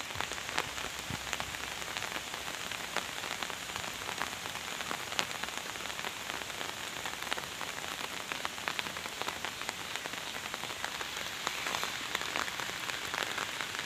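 Steady rain falling on floodwater and foliage, a constant hiss dotted with many individual drop hits.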